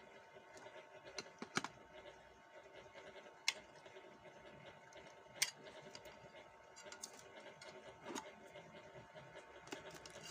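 A handful of sharp clicks and knocks, the loudest a few seconds apart, over a faint steady hum with a thin high tone.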